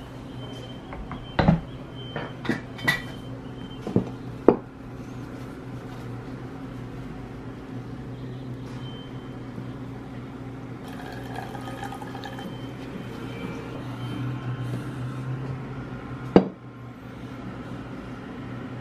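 Almond milk being strained by hand: liquid trickles and drips from a squeezed cloth bag into a glass measuring cup. Sharp knocks of glassware and a bowl being handled come several times in the first few seconds, and once more, loudest, near the end, over a steady low hum.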